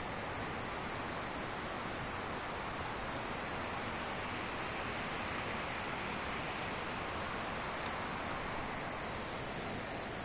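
Steady rushing of a river, with an insect such as a cricket trilling high-pitched over it, about three seconds in and again a few seconds later.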